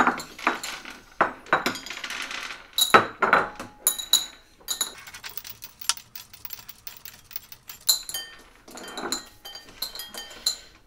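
Candy conversation hearts clicking and clinking against small bowls as they are picked out by hand and counted: a steady run of small, sharp ticks with a light ring, thinner in the middle.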